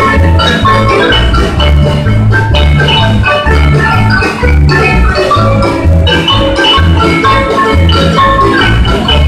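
Guatemalan marimba band playing loud, lively dance music: mallets strike quick runs of notes over a steady, repeating bass line.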